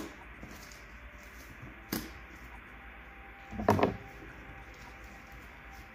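Cardboard shipping box being opened with a metal tool at its staples and lid seam: a sharp click about two seconds in and a short, louder scrape of cardboard nearly four seconds in, over a faint low hum.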